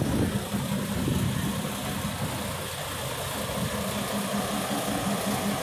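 Heavy truck's diesel engine idling steadily.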